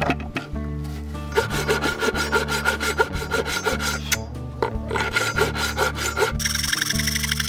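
Hand saw cutting through a walnut board in quick, even back-and-forth strokes, pausing briefly about halfway through, over faint background music.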